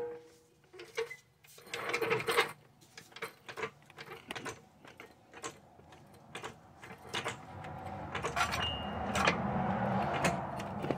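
Scattered metallic clicks and clanks of hand tools working on the car's front suspension parts, with a longer stretch of rattling and scraping in the last few seconds.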